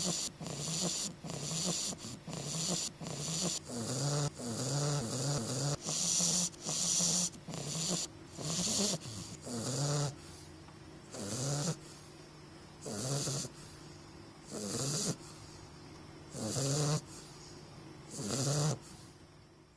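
English bulldog puppy snoring in its sleep, each breath a rough, hissy snore. The snores come quickly, about two a second, for roughly the first ten seconds, then slow to about one every two seconds.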